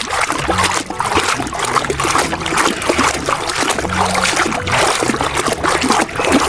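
Water splashing and trickling in an irregular, continuous stream as a muddy toy is washed.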